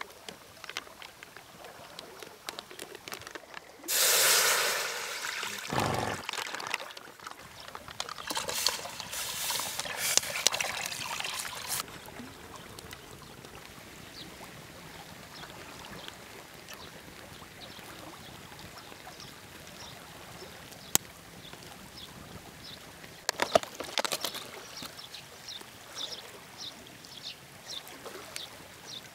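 Thick tomato soup base poured from a plastic bag into a stainless-steel hot pot, with a loud splashing pour about four seconds in and more pouring and bag rustling a few seconds later. After that comes a quieter steady hiss with a few light clicks.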